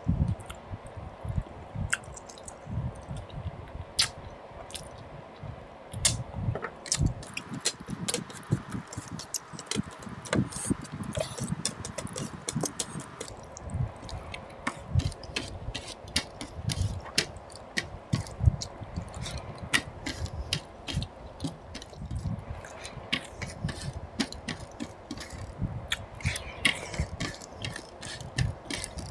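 Close-up eating sounds of rice and mutton paya curry eaten by hand: irregular wet chewing smacks and clicks, with squishes as the fingers mix rice and gravy on the plate.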